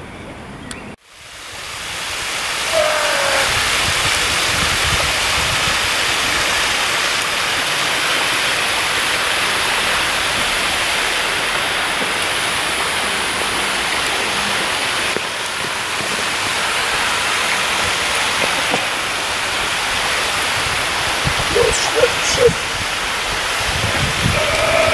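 Fountain water flowing steadily down a shallow stone channel, a loud, even rushing that sets in about a second in. A few short squeaks sound near the end.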